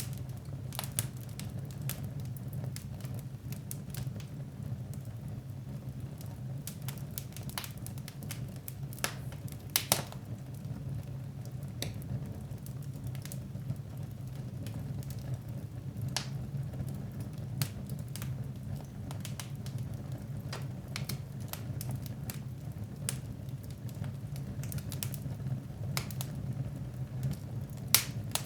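Fireplace fire crackling, with irregular sharp pops over a steady low hum; two louder pops come about ten seconds in and just before the end.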